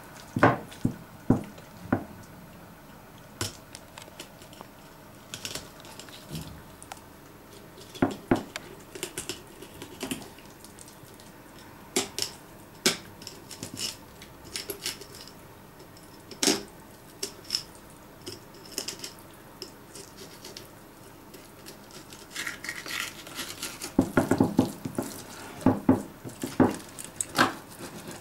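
Small boning knife cutting along a bream's backbone on a wooden cutting board: scattered light clicks and scrapes of the blade, coming thicker near the end.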